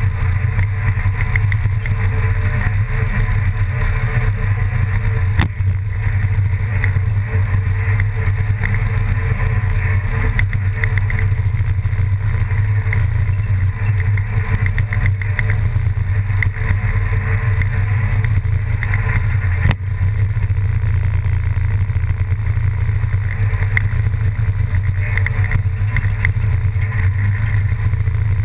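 Steady, loud, low engine drone with a noisy hiss over it, unbroken except for two brief clicks, one about five seconds in and one near twenty seconds.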